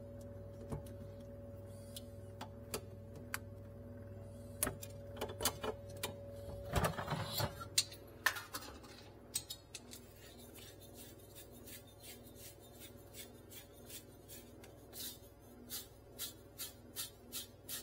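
Hands and small tools handling wires, terminals and parts: scattered clicks and light knocks over a steady low hum, a brief flurry of rattling about seven seconds in, and near the end a run of evenly spaced clicks, about three a second.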